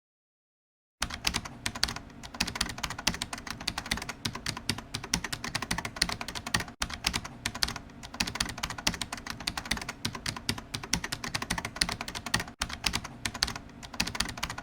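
Rapid computer-keyboard typing clicks, continuous apart from two brief breaks, typical of a typing sound effect laid over text-message chats.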